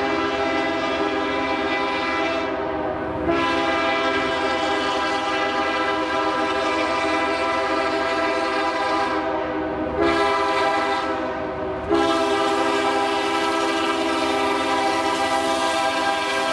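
Train's air horn blowing a long, steady chord of several notes, with almost no break. It is sounded afresh and louder three times: about three seconds in, then twice more about two seconds apart in the second half.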